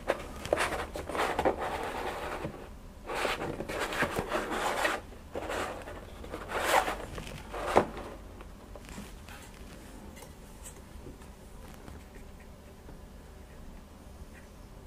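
A cardboard action-figure box with a clear plastic window handled and turned by hand, rubbing and scraping against the hand and the desk in several bursts of rustling over the first eight seconds, then only a faint low hum.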